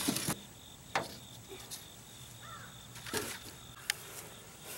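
A few faint, sharp knocks and scrapes from crumbled foam and debris being handled inside an aluminium jon boat's hull compartment, over a steady high insect drone.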